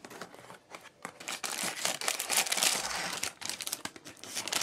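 Packaging crinkling and tearing as it is opened by hand, in a long spell of dense crackles from about a second in and a shorter one near the end.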